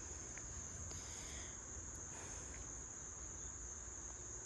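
Steady, high-pitched insect chorus, one unbroken trill, over a faint low rumble.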